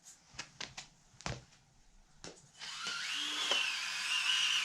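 Axial SCX24 micro crawler's small electric motor and gear drivetrain whining, its pitch wavering with the throttle. It starts about two and a half seconds in, after a few light clicks and taps, and stops near the end.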